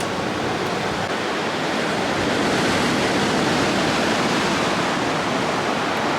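Steady rushing of water, an even roar with no breaks, growing a little louder about a second in.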